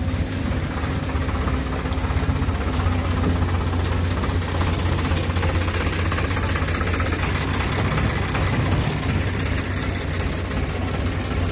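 Diesel locomotive engine running with a steady low drone, heard close by from the locomotive itself.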